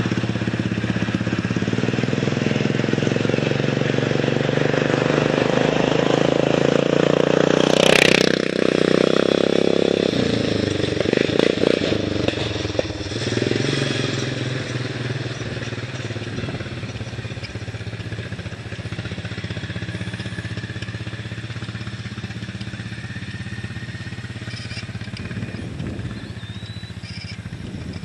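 Racing lawn mower's engine with a loud exhaust running at speed, growing louder as it approaches, passing close about eight seconds in, then fading away as it drives off.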